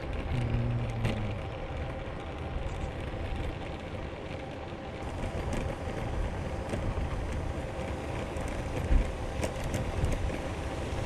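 Steady wind rush over the microphone and tyre noise of a road bike rolling along a paved road.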